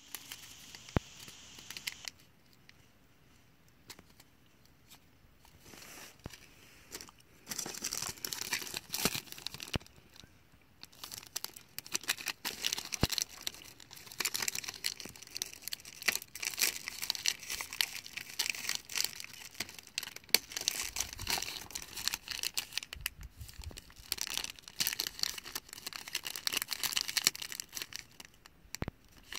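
Clear plastic packaging of a packet of snelled fishing hooks crinkling and crackling as fingers handle it. The sound is quieter at first, with a few isolated clicks, then from about a quarter of the way in becomes dense irregular crackle with brief pauses.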